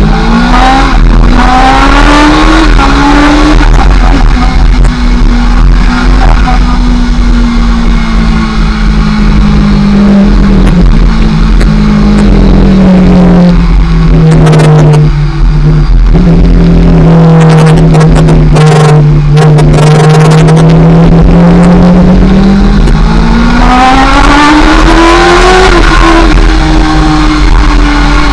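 Kawasaki ZX-6R 600 inline-four sportbike engine at road speed. It revs up hard at the start and drops in pitch at an upshift a few seconds in, then cruises with its pitch sagging slowly. Near the end it climbs again before dropping at another upshift, over a steady low wind rush.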